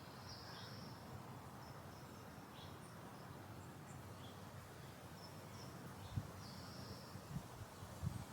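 Faint suburban garden ambience: scattered short, high bird chirps and notes over a steady low background rumble, with a few soft low thumps near the end.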